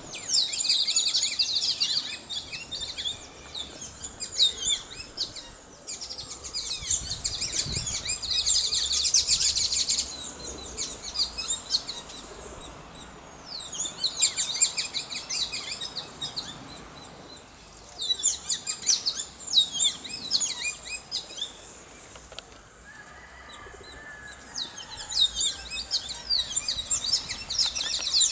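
Many small birds chirping and twittering together in dense bouts a few seconds long, with quieter lulls between them.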